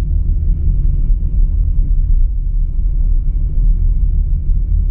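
Car driving along a paved road, heard from inside the cabin: a steady low rumble of engine and tyres.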